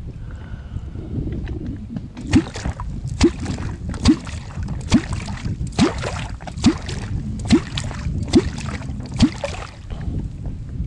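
Catfish kwok plunged into the water beside the boat nine times, each stroke making a deep bloop that rises in pitch. The strokes are evenly spaced a little under a second apart, starting about two seconds in. This is the kwok call used to draw catfish up to the bait.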